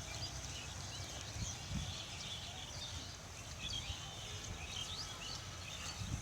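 Many small birds chirping over a steady background noise, with a few short low thuds.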